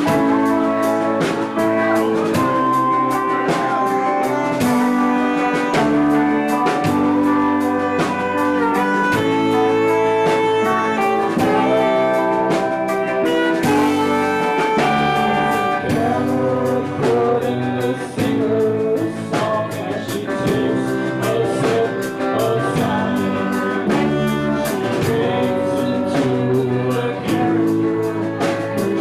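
Live band playing a song: drum kit keeping time under long held melody notes.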